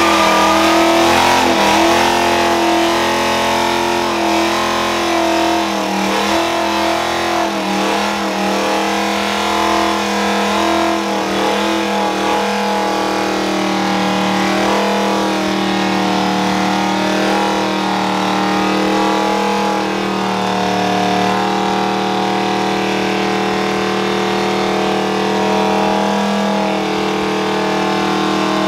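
Ford Mustang engine held at high revs through a long burnout, its rear tyres spinning on the pavement. The revs waver over roughly the first dozen seconds, then hold steady at one high pitch.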